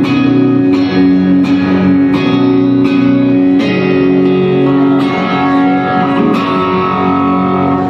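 Electric guitar strumming chords through the Avid Eleven Rack's Matchless DC30 amp model, a chord struck about every three-quarters of a second and ringing on between strikes. It is played hard for a dirty, broken-up tone.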